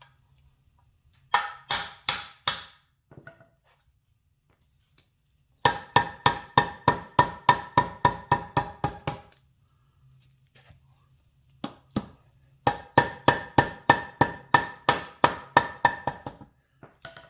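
Hammer tapping a new bushing into an ATV A-arm: quick ringing metal strikes, about five a second, in three runs with short pauses between them.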